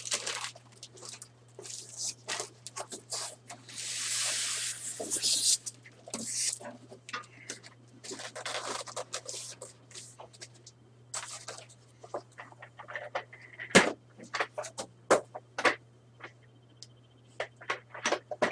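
Cardboard box and packaging of a computer case being handled during unpacking: irregular rustling, scraping and knocks, with a longer rustle about four seconds in and a sharp knock about fourteen seconds in. A steady low hum runs underneath.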